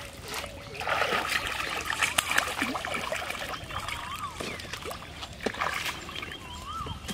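A hooked fish thrashing at the surface of a pond as it is pulled toward the bank: irregular, choppy splashing, heaviest in the first few seconds and then in smaller bursts.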